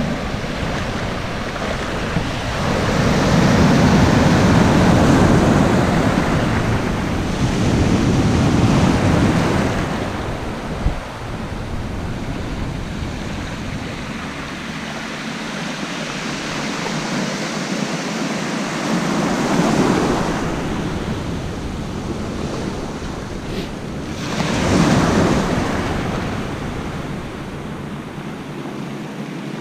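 Small ocean surf breaking and washing over a sandy shore in the shallows, rising and fading in several surges, loudest about three to nine seconds in and again near twenty and twenty-five seconds. Wind buffets the microphone, with a low rumble through the first half.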